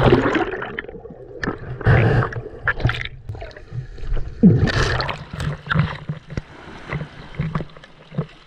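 Seaweed air bladders being squeezed and popped by hand: a scatter of short, sharp pops, with several louder rushing, splashy bursts among them.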